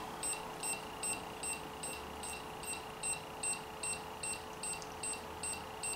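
Electronic beeper of a homemade indoor-soccer control system sounding a rapid, even run of short high beeps, about two and a half a second, over a faint steady hum.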